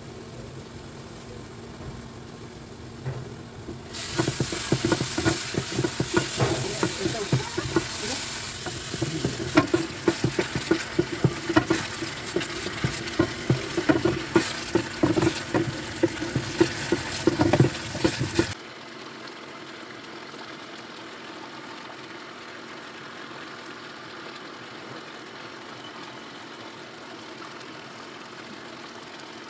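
Onion and spice paste frying in a nonstick pan, sizzling loudly while a wooden spatula stirs it, with many quick knocks and scrapes of the spatula against the pan; it starts about four seconds in. It cuts off suddenly after about 18 seconds to a quieter steady hiss of the watery curry boiling.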